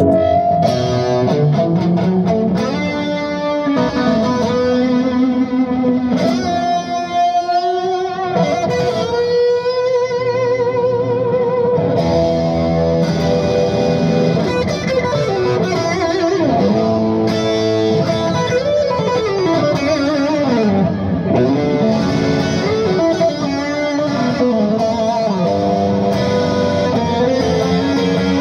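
Electric guitar played through a Bludotone Joyeuse tube amplifier head, single-note lead lines with wavering vibrato on held notes and bent notes gliding up and down. Heard through a phone microphone.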